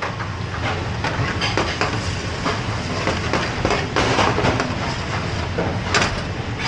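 Metal ladles and spoons clinking and scraping in aluminium frying pans of curry on a commercial gas range, over a steady low roar from the busy kitchen, with a louder clank about six seconds in.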